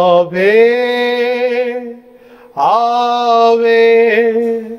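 A man singing a slow Marian hymn without accompaniment: two long, held phrases with a short pause about two seconds in.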